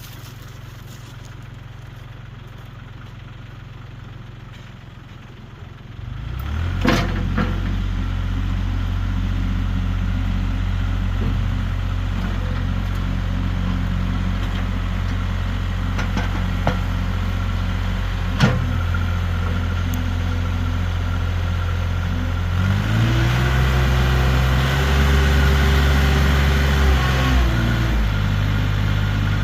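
Backhoe's diesel engine idling low, then throttled up about six seconds in and running steadily, with a few sharp clanks. Near the end the engine pitch rises and holds for about five seconds, then falls back.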